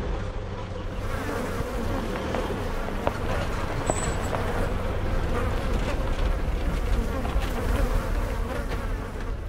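Flies buzzing close around the microphone, a steady fluttering drone, over the low rumble of a ute towing a camper trailer driving slowly past.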